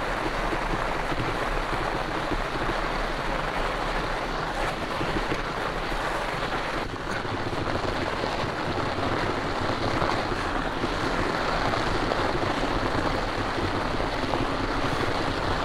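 Wind buffeting the microphone of a camera carried on a moving fat bike: a steady rushing noise.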